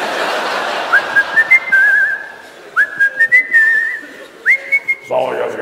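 A man whistling into a handheld microphone: three phrases, each sliding up and then held with a warble. A rushing hiss fills the first couple of seconds and fades.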